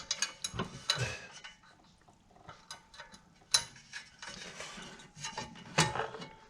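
Socket ratchet clicking in short runs as it undoes the engine fan's nuts, with scattered clinks of metal tools.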